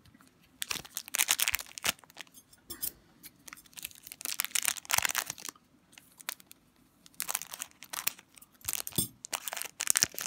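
Foil wrapper of an Upper Deck Portfolio hockey card pack crinkling and rustling in bursts as it is handled and opened.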